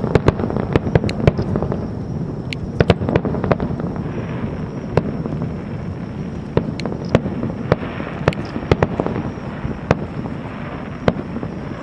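Aerial fireworks bursting: a rapid, irregular string of sharp bangs and crackles over a continuous rumble of shells going off.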